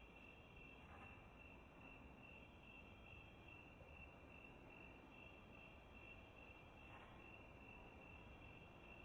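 Faint crickets chirping: an even, high pulsing trill that repeats several times a second without a break.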